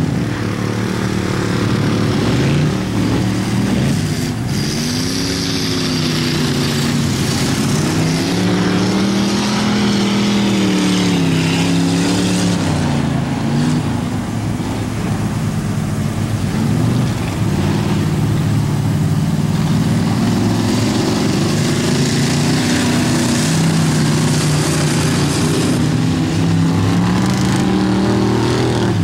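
Engines of several rear-wheel-drive ice-racing cars running hard around the track, their pitch rising and falling as the drivers accelerate and lift through the turns, with more than one engine heard at once.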